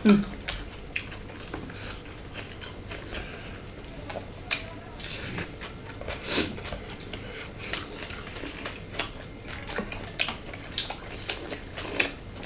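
People chewing and biting into fresh lettuce and pork salad eaten by hand, with irregular crisp crunches and small clicks.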